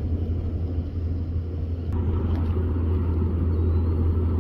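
Ocean waves on a shoreline, heard as a steady low rumble.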